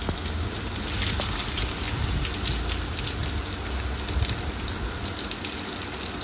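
Sliced onions sizzling and crackling in hot oil in a frying pan, a steady hiss with fine crackles. More onions are tipped in partway through.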